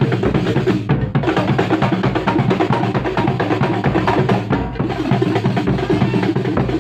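Kuntulan percussion ensemble playing a fast, dense rhythm on frame drums (rebana) with a deeper drum underneath, the strokes running on without a break.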